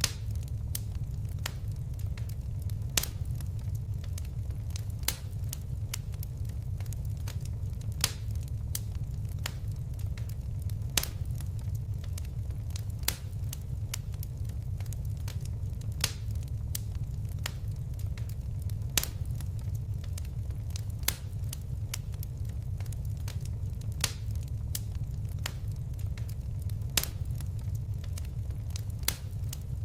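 Wood fire burning with a steady low rumble and irregular sharp crackles and pops, a few louder snaps every couple of seconds.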